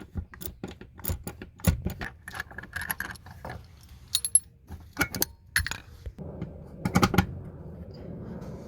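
Ratchet with a deep 14 mm socket clicking and metal seatbelt hardware clinking while a seatbelt anchor bolt is undone and the old belt removed; the clicks come irregularly.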